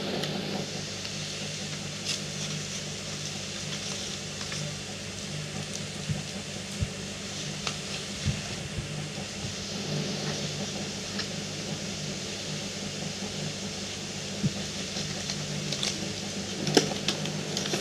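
Earbuds' cardboard retail box being handled and slid open: a few soft clicks and scrapes, the sharpest near the end, over a steady hum and hiss.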